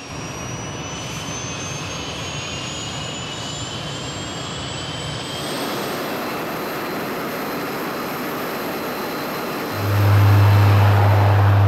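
Aircraft turbine engines running, with a whine that slowly rises in pitch. About ten seconds in a louder, low steady drone takes over: the six-bladed propellers of an Alenia C-27J Spartan's turboprop engines running close by.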